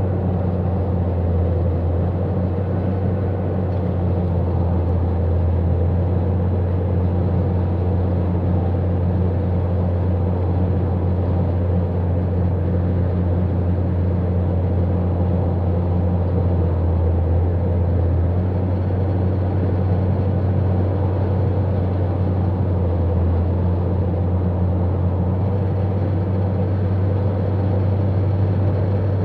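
Steady road noise inside a car cruising at freeway speed: a constant low hum under an even hiss.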